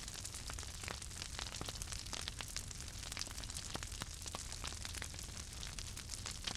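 Bonfire crackling: many irregular sharp snaps and pops over a steady low rumble.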